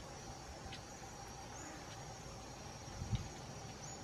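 Outdoor ambience of insects keeping up a steady high trill, with a couple of short high chirps. A brief low thump comes about three seconds in.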